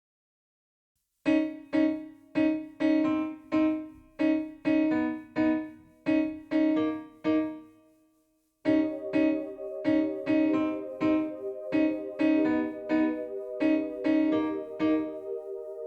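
Electric-piano-style keyboard playing a pulse of repeated notes, about two a second, starting a little over a second in. The notes die away around eight seconds in, then the pulse returns over fuller held chords.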